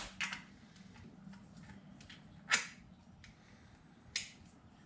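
Faint handling sounds of a compression tester hose being fitted into a spark plug hole: a few short sharp clicks, the clearest about two and a half seconds in and another just after four seconds, over a low steady hum.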